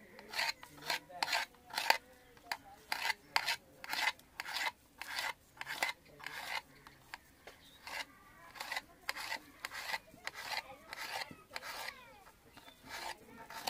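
Small knife slicing a cucumber on a stainless steel plate: short rasping cuts, about two a second, each stroke going through the cucumber onto the metal.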